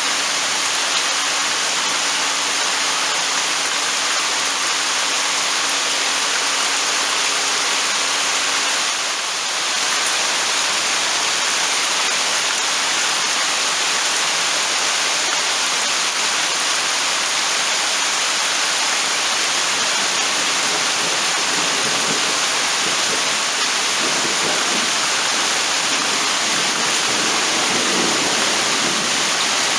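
Heavy rain falling in a steady downpour, an even hiss, with a low, uneven rumble coming in over the last several seconds.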